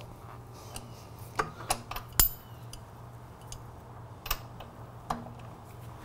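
Hand tools clicking and clinking on a motorcycle's rear axle nut: a socket ratchet and a combination wrench held on either side of the nut. A handful of separate sharp metal clicks, the loudest about two seconds in.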